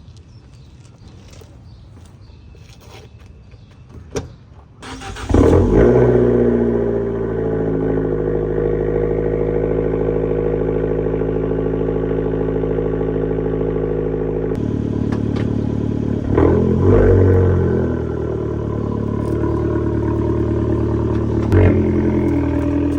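Stock-exhaust Abarth 500C's 1.4-litre turbocharged four-cylinder engine starting after a few clicks, catching about five seconds in with a brief flare, then settling to a steady idle. Near the end it is revved in two short blips.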